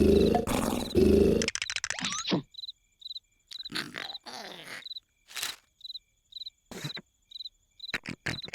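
A loud cartoon snore cuts off about a second and a half in. Crickets then chirp at a steady pace of about two chirps a second, with a few short cartoon grunts and rustles between.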